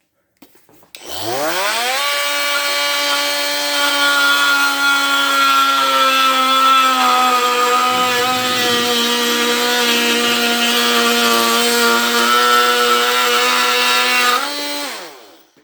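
Ryobi brushed oscillating multi-tool, set to speed six, cutting a small piece of wood: the motor spins up about a second in, holds a steady whine with a rasping cutting buzz, then winds down and stops near the end.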